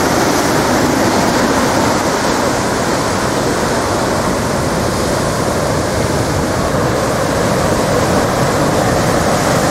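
Large ocean waves breaking into whitewater: a steady, unbroken wash of heavy surf.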